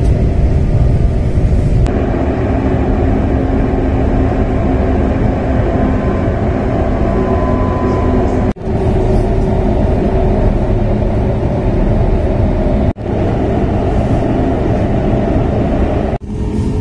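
Running noise heard inside a high-speed train carriage: a steady low rumble with a faint hum. It breaks off for an instant three times.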